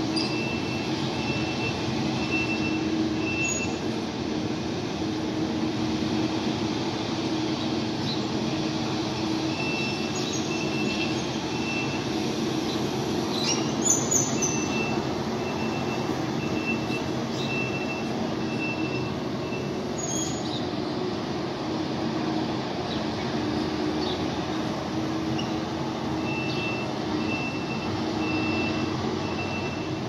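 Heavy road-construction machinery running steadily, with a reversing alarm beeping in several runs of evenly spaced high beeps. A short clatter about halfway through.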